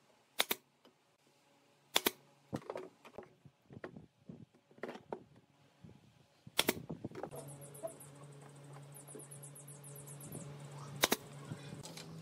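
Brad nailer firing single shots into pine boards: about four sharp snaps, the loudest near the end, with wooden knocks and clatter as the pieces are handled between shots. A steady low hum sets in a little past halfway.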